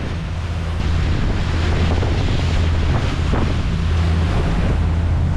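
Wind buffeting the microphone and water rushing along the hull of a 40 ft trawler under way, over the steady low drone of its diesel engine.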